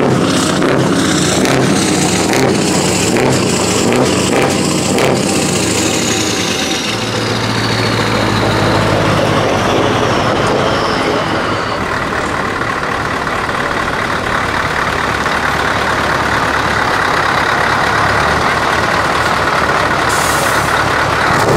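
Scania V8 truck engine with an open, straight-through exhaust pipe, pulsing loudly as the truck rolls slowly past and then settling into a steady low note. High whistles fall in pitch twice in the first half, and a short hiss of air comes near the end.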